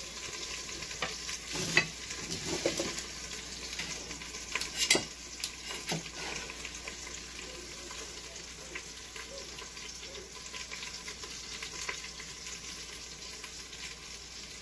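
Chicken thighs sizzling in oil in an Instant Pot's stainless inner pot on the sauté setting, while metal tongs push the pieces around, with a few sharp clicks and knocks against the pot in the first half.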